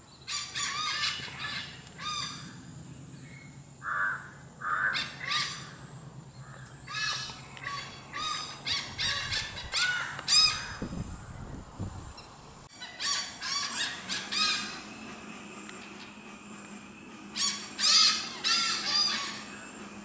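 Malabar pied hornbills calling: bouts of loud, harsh cackling notes in quick series, about five bouts with short pauses between them.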